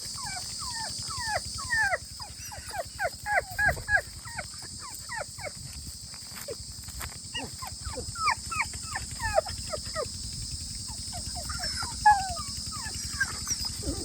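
Puppy whining in quick runs of short high yelps, each falling in pitch, in three spells with brief pauses between. Crickets trill steadily behind.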